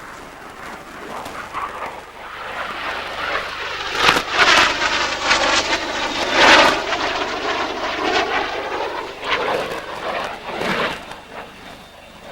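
Military jet aircraft making a low pass in a flying display. The jet noise builds to its loudest a few seconds in, with a rushing sound that sweeps in pitch as it goes by, then fades.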